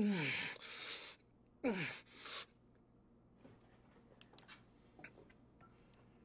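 A man gasping and groaning twice, each a hoarse exhale falling in pitch, from the burn of gulping down a bottle of hot sauce; after that only a few faint clicks.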